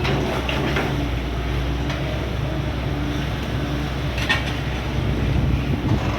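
Excavator's diesel engine running steadily at work, with a short sharp sound about four seconds in.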